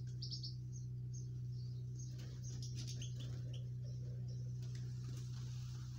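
European goldfinches giving short, high twittering calls in a few scattered bursts, over a steady low hum.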